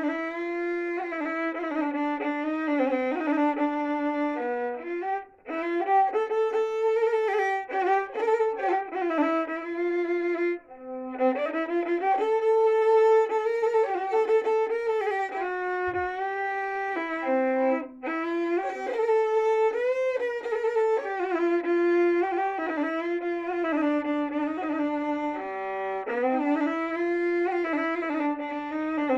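Solo violin played with a bow: a single melody line of held notes joined by slides, with two short breaks about five and ten and a half seconds in.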